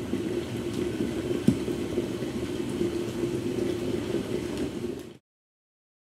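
Water boiling hard in a pot: a steady bubbling with scattered small pops, cutting off suddenly about five seconds in.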